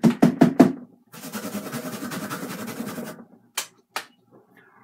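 Microphone being knocked off and fumbled: a quick cluster of loud knocks and bumps, then about two seconds of fast scratchy rattling handling noise, then two more sharp knocks.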